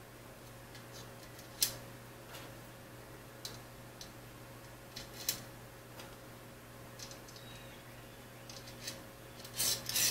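Small metal T-slot nuts clicking and scraping as they are picked up and slid into the slot of an aluminum extrusion. A few sharp clicks come spread out, then a quick cluster of louder clicks near the end.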